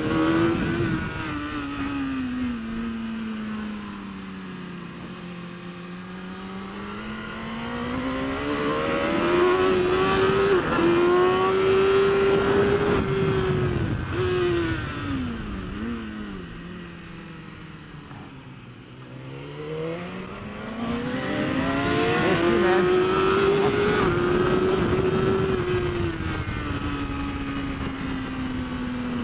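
BMW S1000RR superbike's 999 cc inline-four engine at racing revs. It climbs and falls repeatedly as the bike accelerates out of corners and slows into them, with quick dips at gear changes and its lowest revs about two-thirds of the way through.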